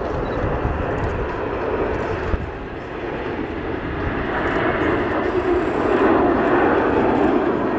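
Patrouille de France Alpha Jets in formation flying past, their jet engines growing louder in the second half as they come closer.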